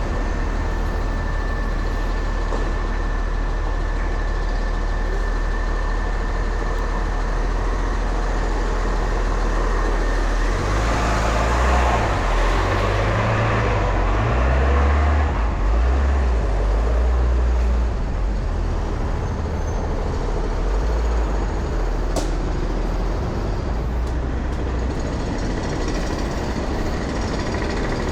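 Steady city road traffic, with a heavy vehicle passing close: its low engine rumble swells about a third of the way in and fades again past the middle.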